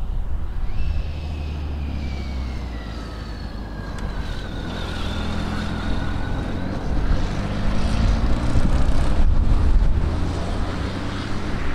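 A motorcycle passing by, its pitch falling as it goes past and then rising as it pulls away through the bend, with a small car following close behind it and passing loudest near the end.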